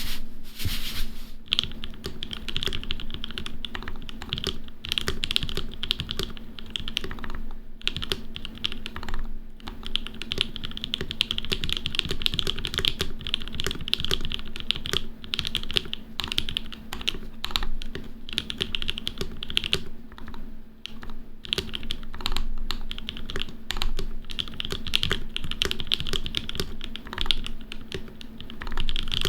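Continuous fast typing on a Matrix Lab Noah mechanical keyboard with lubed and filmed PrimeKB Lil' Tykes switches, GMK Shark Bait keycaps and lubed C3 stabilizers. The keystrokes run as a dense stream of clicks and clacks with a few short pauses.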